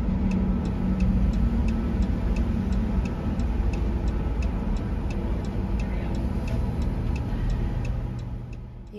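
A vehicle's hazard-light flasher clicks steadily, about three clicks a second, over the low rumble of the vehicle creeping along a ferry's enclosed car deck.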